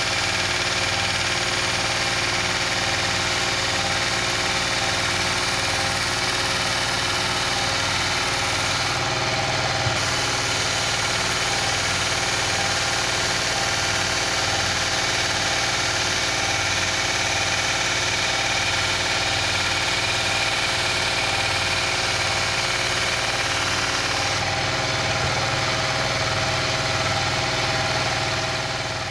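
Small bench belt sander running steadily while a steel knife blank, cut from an old concrete-cutting saw blade, is ground freehand against the belt to put an edge on it.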